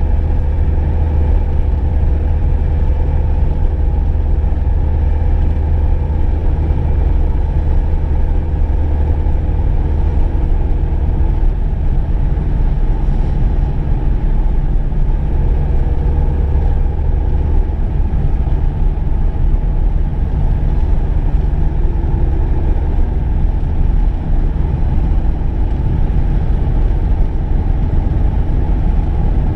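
Car driving at a steady pace: an even, low engine and road rumble that holds constant without revving or changes.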